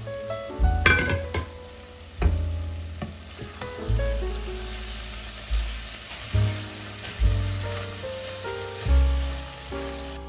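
Diced vegetables sizzling in fat in a pot while a wooden spoon stirs them, with a few sharp knocks about a second in.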